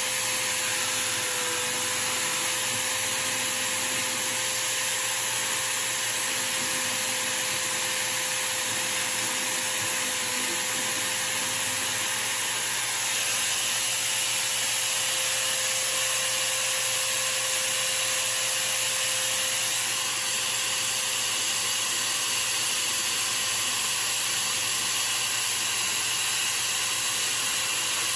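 Power-tool motors running steadily: a spinning workpiece held in a motor-driven chuck is cut against a band saw blade, then filed while it turns. A constant hum sits under an even whirring hiss; about halfway through the sound gets slightly louder and a faint high whine joins in.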